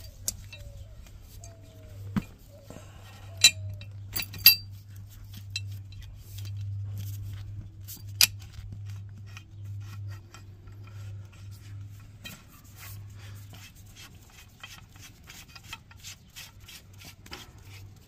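Metal clinks and taps from handling a gas riser fitting as it is pushed onto yellow polyethylene gas pipe: a few sharper clacks in the first half, then a run of light clicks near the end.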